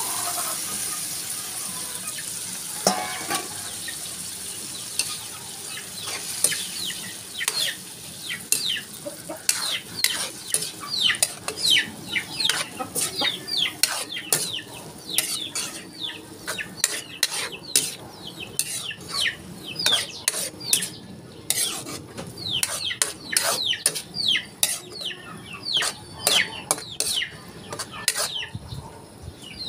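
Cooked mung beans poured into a hot wok of sautéed tomato, garlic and onion, sizzling. From about six seconds in, a spatula stirs and scrapes against the wok in quick repeated strokes, two or three a second.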